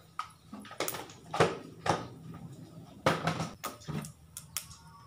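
Mustard-seed tempering (kadugu thalippu) frying in hot oil in a small pan, with irregular sharp pops and crackles as the seeds burst, a sign the oil is hot enough and the tempering is nearly done.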